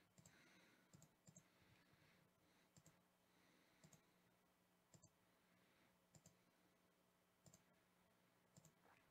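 Faint computer mouse clicks, about one a second at uneven intervals, over near silence.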